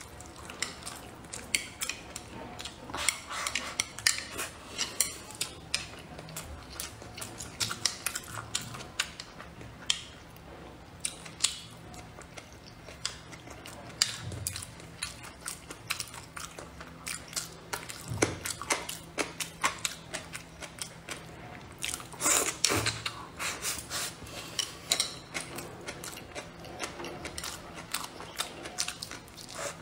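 Close-up mouth sounds of someone chewing and biting braised pork belly and rice, with many short wet clicks and crackles, and chopsticks now and then tapping against a ceramic bowl.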